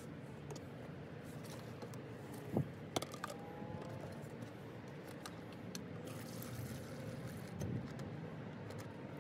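A metal drill chuck is set down into a plastic mixing cup with two sharp knocks, then liquid is poured in over it and foams up, over a steady low background rush.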